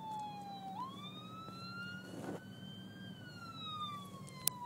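Ambulance siren wailing behind the car, its pitch sliding slowly down, sweeping back up about a second in, then falling again from about three seconds in. A steady low hum lies under it, and a sharp click comes near the end.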